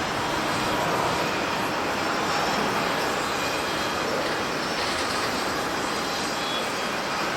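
Jet engines of a Boeing 787-9 Dreamliner taking off, heard as a steady, even rushing noise.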